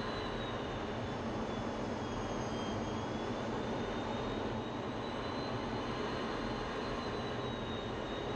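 Steady jet engine and airflow noise inside an F-16 fighter's cockpit, with a faint high whine that dips slightly in pitch a couple of seconds in and comes back up later.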